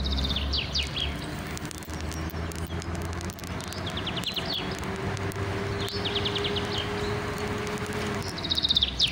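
A small bird singing short trilling phrases that fall in pitch, four times, over a low steady outdoor rumble. A steady hum comes in near the middle and falls away near the end.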